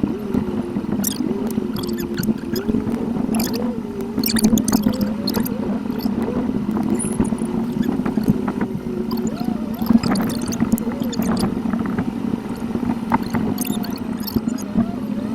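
Car cabin noise from a dashcam, sped up eightfold: a steady engine-and-road hum with a higher tone that wavers quickly up and down, and frequent short clicks.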